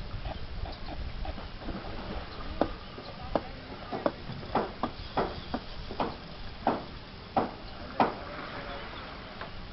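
A series of about a dozen short, hollow knocks at an uneven pace of one or two a second, starting about two and a half seconds in and stopping near eight seconds.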